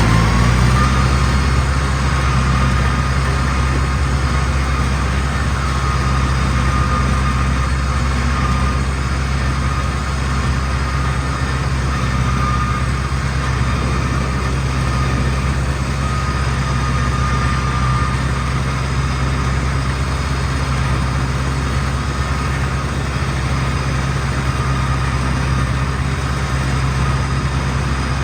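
Heavy farm machine's engine running steadily at constant speed as it works a muddy rice field, with a low hum and a faint steady whine above it.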